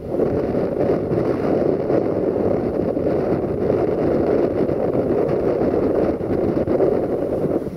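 Container wagons of an intermodal freight train rolling past, giving a steady rumble of wheels on rail.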